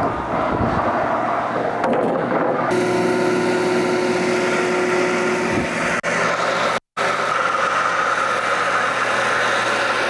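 Portable sawmill's engine running steadily under load, with a steady added tone for a few seconds in the middle. The sound cuts out for a split second about two-thirds of the way through.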